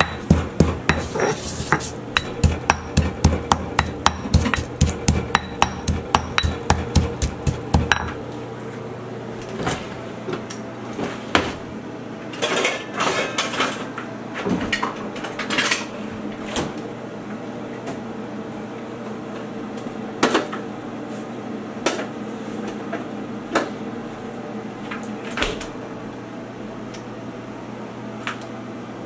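Pestle pounding in a heavy stone mortar, an even run of sharp strikes about two to three a second that stops about eight seconds in. After that come scattered knocks and clatter of kitchenware being handled.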